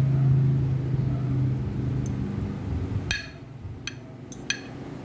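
A steady low hum that stops about three seconds in, followed by three sharp clinks of tableware, like utensils knocking on a plate or glass.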